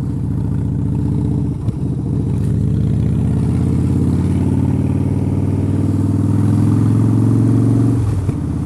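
Harley-Davidson Dyna's V-twin engine pulling the bike along, its note rising slowly as it gathers speed, then dropping sharply about eight seconds in as the throttle eases off.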